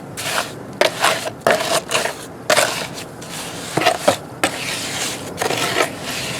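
Wet concrete being mixed by hand, a tool scraping and churning through the gritty mix in irregular strokes, the mix nearly ready.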